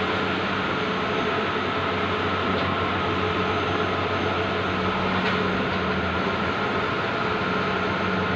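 Bluewin outdoor large-format digital printer running: a steady mechanical hum with a couple of faint ticks.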